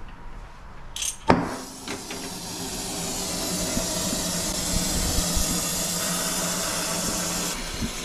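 A brazing torch being lit with a flint striker: a scrape-click about a second in and the torch catching with a sharp pop, then the flame hissing steadily.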